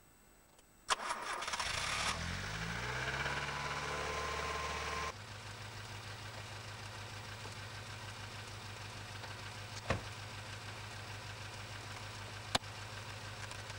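1982 Datsun Cherry 150A's engine starting from cold in frost: it fires about a second in and its revs climb with a rising pitch. About five seconds in the sound drops suddenly to a steady idle, with two sharp knocks later on.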